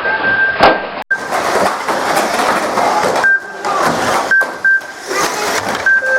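Radio-controlled model banger cars racing on a track: a steady rattle and clatter of small wheels and bodies knocking together, with a brief high whine that comes and goes several times.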